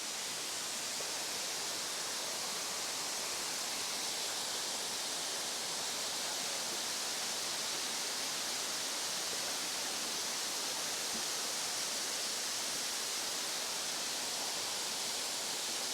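Waterfall rushing: a steady, even hiss of falling water, bright and unchanging.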